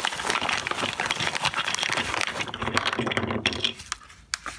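Plastic packaging crinkling and rustling with rapid small clicks as a bag of plastic mini breadboards is unwrapped and handled. It thins out to a few separate clicks near the end.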